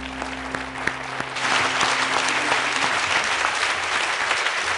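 Audience applauding, swelling up about a second and a half in as the last notes of background music die away.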